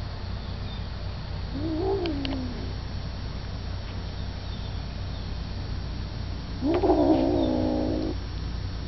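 Tabby kittens crying out while feeding on a freshly caught chipmunk: a short wavering cry about two seconds in, and a louder, longer one lasting about a second and a half near the end, over a steady low hum.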